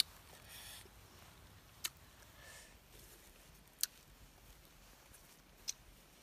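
Faint outdoor quiet broken by a sharp, short click that repeats evenly about every two seconds, four times in all, with a faint rustle about half a second in.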